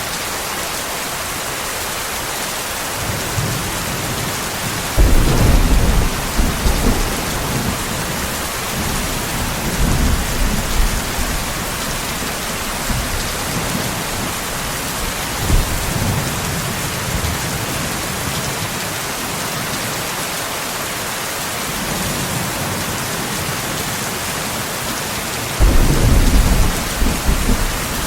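Steady heavy rain hissing, with thunder rumbling: a sudden loud crack and rumble about five seconds in, softer rolls after it, and another loud thunderclap near the end.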